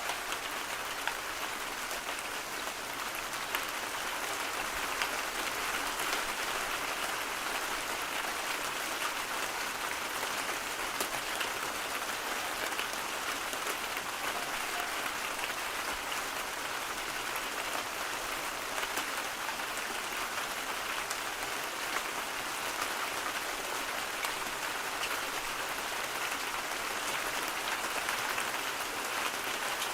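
Steady rain: a dense, even hiss of falling drops with scattered faint ticks.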